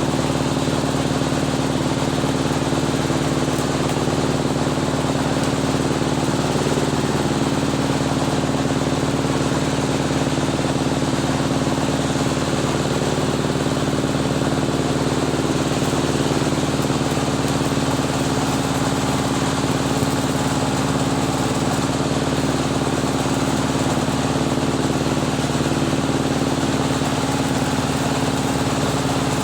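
An engine idling steadily at an even speed.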